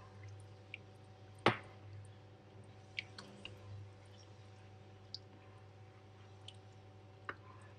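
Black plastic spoon stirring a coconut-milk curry in a pot, with a few light clicks and knocks of the spoon against the pot, one much louder about one and a half seconds in, over a steady low hum.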